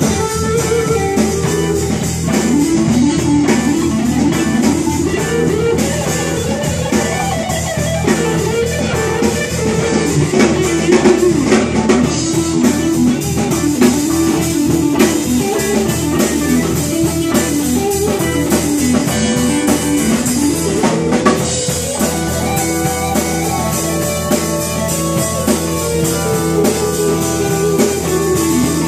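Live band jamming a warm-up: a Telecaster-style electric guitar plays melodic lead lines over a drum kit, continuously and at full volume.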